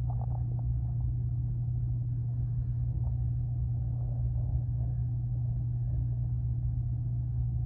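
A steady low rumble with a constant deep hum that holds at the same level throughout.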